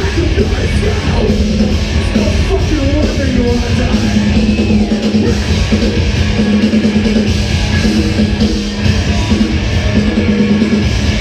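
Rock band playing live, loud and continuous, with a singer's voice over the band.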